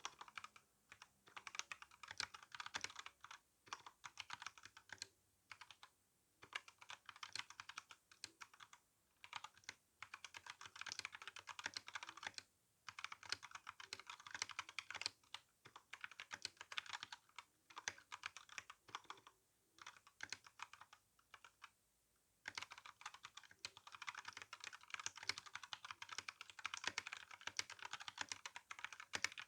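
Steady typing on an RK61 mechanical keyboard with brown tactile switches and GSA keycaps: a rapid, continuous clatter of keystrokes with a few brief pauses.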